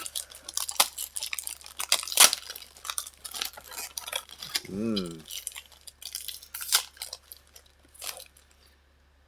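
Foil wrapper of a Pokémon card booster pack crinkling and tearing open, in a string of sharp irregular crackles, with a short hummed 'mm' from a person about halfway through.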